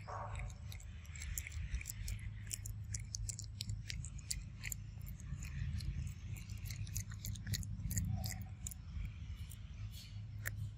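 Irregular crisp clicks and cracks of a macaque handling and chewing peanuts, over a steady low rumble.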